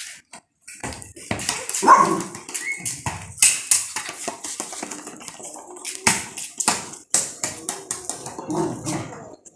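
Young golden retriever barking a few times, with sharp clicks and knocks around it.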